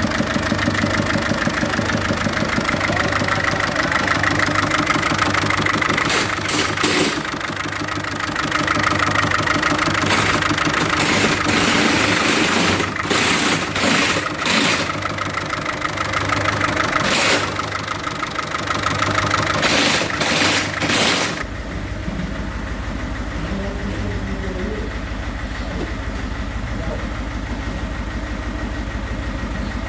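1.6 HDi four-cylinder diesel engine running badly with a faulty number 3 injector, with several brief louder surges. About 21 seconds in the sound turns to a steadier, duller hum.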